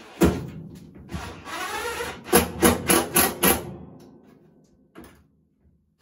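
Cordless drill run in short bursts against a steel scuttle panel. A sharp knock comes just after the start. Then the motor whirs and shifts in pitch, with about five quick pulses, about three a second, in the middle, before it dies away.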